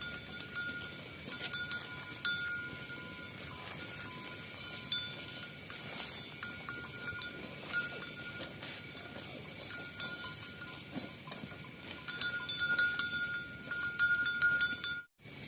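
Bells worn by grazing livestock clanking irregularly, short metallic rings and clinks that come thicker and louder near the end.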